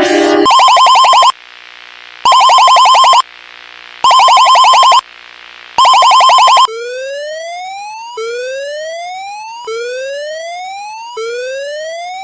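Electronic emergency-alert alarm tones: four loud bursts of a rapidly pulsing tone, each about a second long with short pauses between, then a rising whoop that sweeps upward in pitch and repeats four times.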